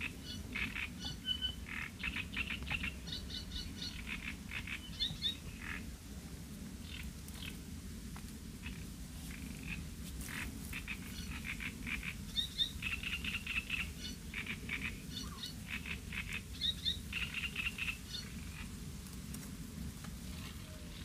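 Frogs calling from the reed bed in bouts of rapid pulsing croaks, several runs of calls with short breaks between them, over a steady low rumble.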